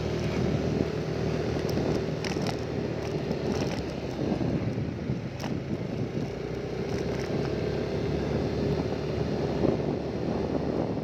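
A small engine running steadily at an even speed, with wind buffeting the microphone and a few light clicks.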